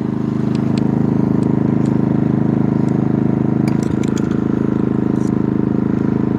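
Genmax GM3200i inverter generator running steadily, with a few light ticks over it.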